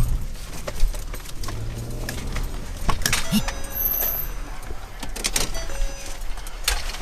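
A car running, with scattered clicks and knocks and a few short faint beeps.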